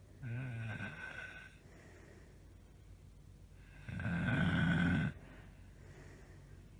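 A woman snoring loudly in her sleep: two snores about four seconds apart, the second louder.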